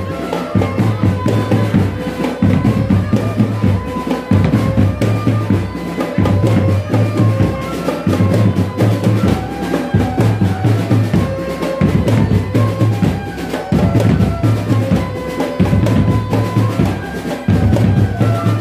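An Indonesian marching drum band playing a tune: a repeating bass-drum pattern with snare drums and a short, stepping melody over it.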